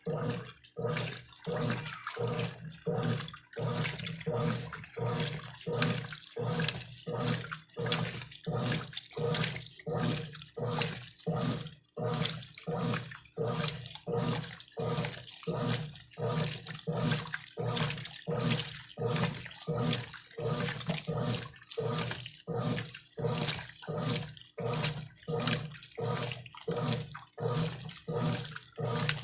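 Brastemp Clean 5 kg washing machine agitating its wash load: water sloshing back and forth in the tub with the motor humming on each stroke, in an even rhythm of about one and a half strokes a second.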